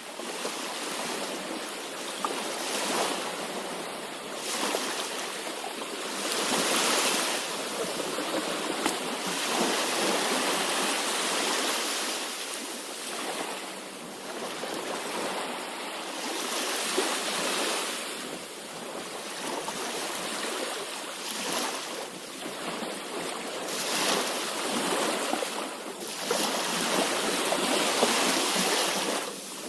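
Sea waves breaking and washing ashore: a continuous hiss of surf that swells and eases every few seconds.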